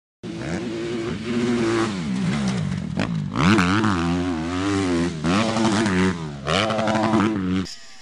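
Motocross bike engines revving hard, the pitch rising and falling again and again in quick swells. The sound cuts off abruptly near the end.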